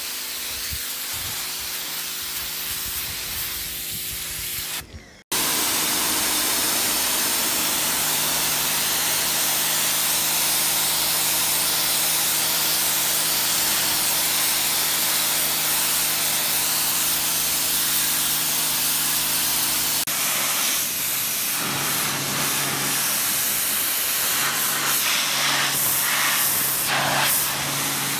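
Sun Joe SPX4000 electric pressure washer running, its electric motor and pump humming steadily under the loud hiss of the water jet spraying. The sound cuts out for a moment about five seconds in, and the hum and hiss change about twenty seconds in.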